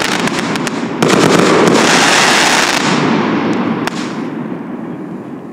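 A 49-shot, 30 mm firework cake (Triplex TXB853 Future X) firing, with a dense crackle of many small pops over a loud rush. A fresh loud volley hits about a second in. The crackle then dies away over the last couple of seconds, with a few last scattered pops.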